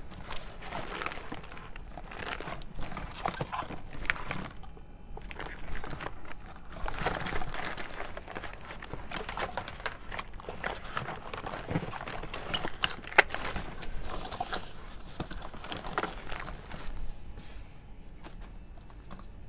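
Rustling and crinkling of craft supplies being rummaged through, with scattered small clicks and taps and one sharp click about two-thirds of the way through.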